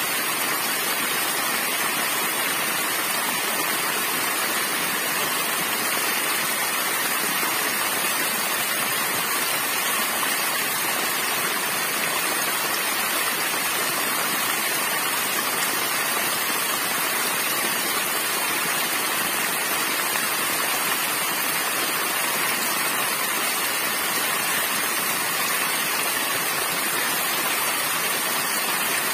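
Small waterfall splashing onto rocks and into shallow water, a steady rush with no change.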